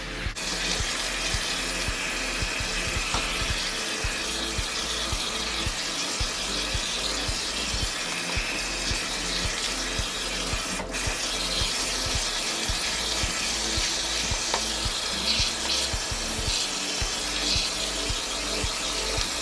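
Kitchen tap running into a sink while spinach is rinsed under it, a steady splashing that starts about half a second in. Background music with a steady beat plays underneath.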